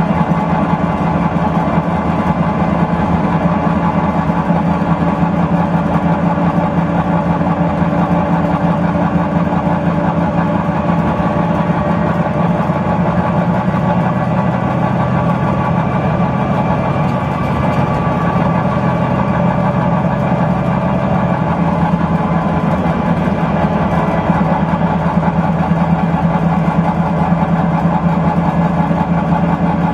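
Volvo B9TL double-decker bus's rear-mounted six-cylinder diesel engine running while the bus drives, heard inside the passenger saloon. The engine note is steady, with a shift in its pitch about two-thirds of the way through.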